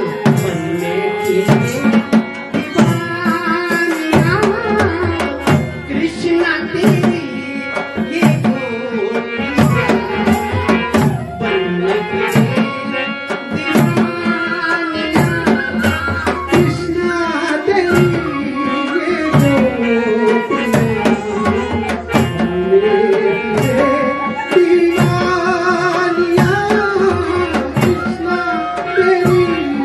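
Live Himachali folk song: a singer's voice carrying the melody over a steady hand-drum rhythm.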